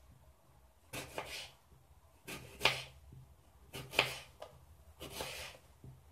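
Kitchen knife slicing a red apple thinly on a wooden cutting board: four cuts about a second and a half apart, each ending in a sharp tap of the blade on the board.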